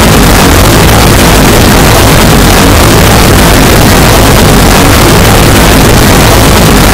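Harsh noise music: a loud, unbroken wall of heavily distorted noise, clipped at full level, with no beat or melody.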